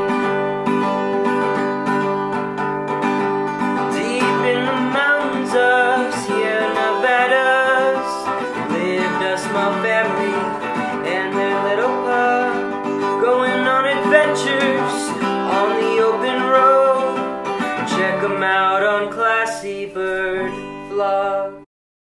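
Background music led by guitar, stopping abruptly near the end.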